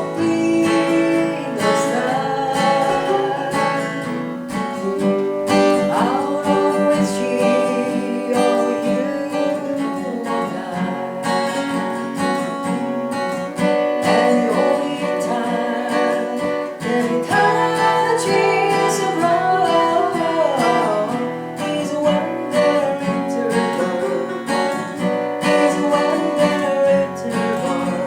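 Acoustic guitar strumming and picking a song accompaniment, with a sung melody over it at times.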